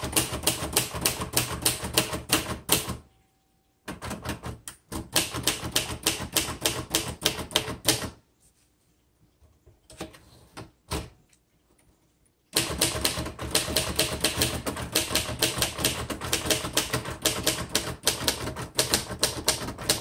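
1960s Royal Tab-O-Matic manual typewriter being typed on: fast runs of key and typebar strikes in bursts, with short pauses between them. About ten seconds in there is a carriage return with its lever, then steady typing again.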